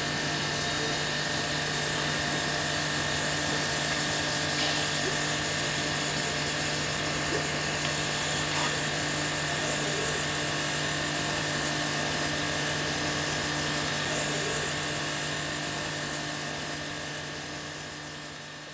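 Ski stone-grinding machine running as a cross-country ski's base is reground: a steady low hum with a high whine over a hiss. It fades out over the last few seconds.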